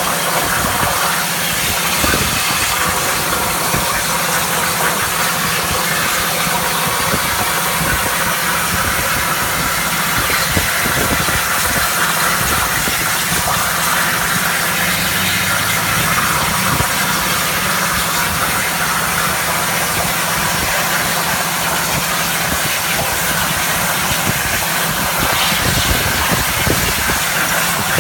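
CNC plasma cutter's torch cutting, a steady hiss over a low hum.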